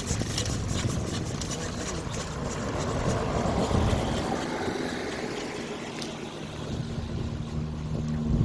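Engine of a restored 1911 Indian motorcycle running steadily.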